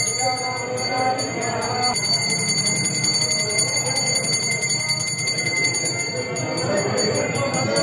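A metal bell rung rapidly and without pause, struck several times a second so that its high ringing tones hold steady, as during a Hindu temple puja.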